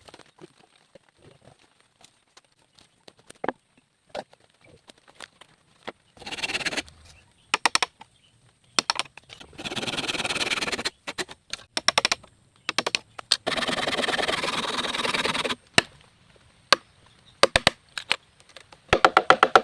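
Wood, most likely bamboo, being worked by hand: scattered sharp cracks and knocks, with three longer bursts of rasping scraping, about 6, 10 and 14 seconds in, and a quick run of knocks near the end.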